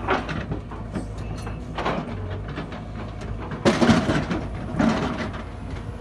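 Sumitomo hydraulic excavator's diesel engine running steadily while the machine digs in stony ground, with several bursts of rocks scraping and clattering against the bucket, the loudest about four seconds in.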